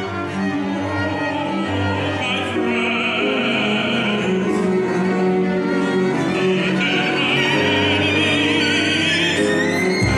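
String quartet with double bass and piano playing a slow classical piece, the bowed strings holding long notes with vibrato over a steady low bass line.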